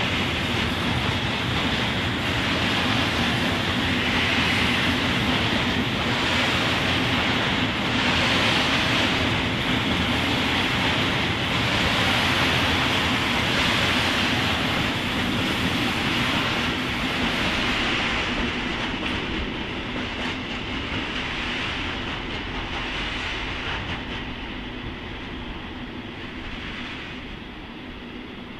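Long freight train of container and open wagons rolling past behind an electric locomotive: steady rolling and clatter of the wagon wheels on the rails, fading over the last ten seconds as the train draws away.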